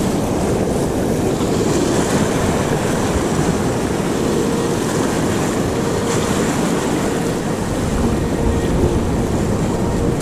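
Steady wind buffeting the microphone over surf washing against the rocks, a dense even rush with a strong low rumble.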